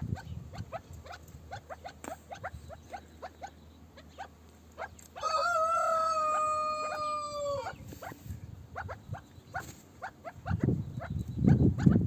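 Chukar partridges calling: a steady run of short, sharp notes, several a second. About five seconds in comes one long call, held for about two and a half seconds and dropping slightly at the end. Low rumbling noise near the end.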